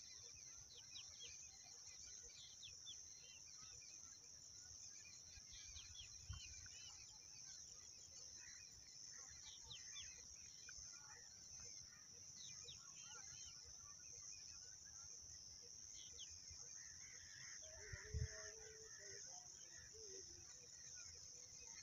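Faint open-field ambience: many small birds chirping in the distance over a steady high-pitched hiss. There is a low bump about six seconds in and a louder one about eighteen seconds in, and a faint lower call a little before the end.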